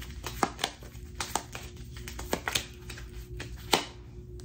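A deck of card-stock prompt cards being shuffled by hand: irregular soft clicks and flicks of cards slipping against each other, with a few sharper snaps, the loudest nearly four seconds in.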